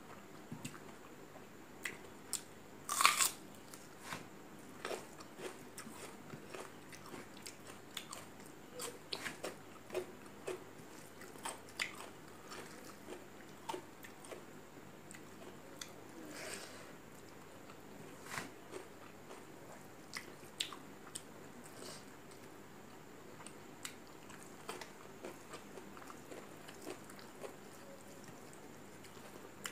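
A person eating rice and curry by hand close to the microphone: chewing and mouth clicks that come every second or so, with a loud crunchy bite about three seconds in.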